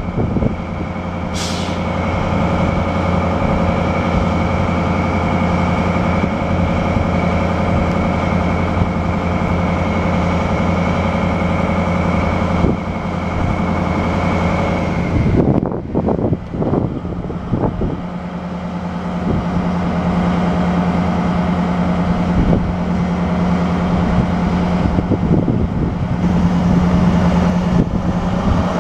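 A DB class 218 diesel locomotive's MTU engine runs steadily with a high whine over a deep hum, and there is a short hiss of air about a second and a half in. About halfway through the sound changes and the whine drops away, then it settles into a steady deep hum.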